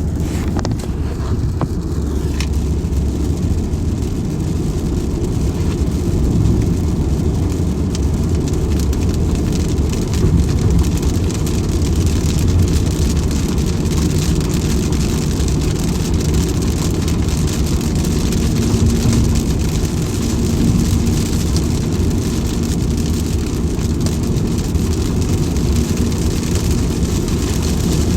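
Steady rain falling: an even, unbroken hiss with a heavy low rumble underneath.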